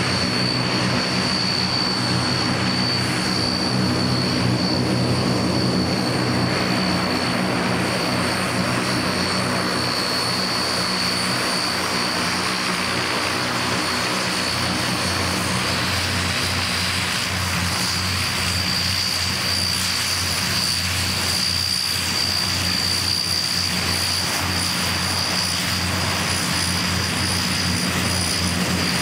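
Antonov An-32's two Ivchenko AI-20 turboprop engines running as the aircraft taxis: a steady high turbine whine over the low drone of the four-bladed propellers.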